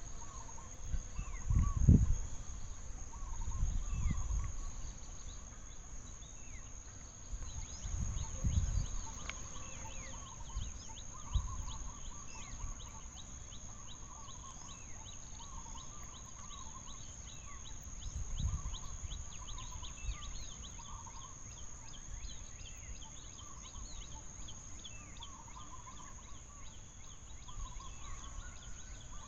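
Outdoor forest ambience: a steady high insect drone with many short, repeated chirping animal calls. There are a few low rumbles or thuds in the first half, loudest about two seconds in.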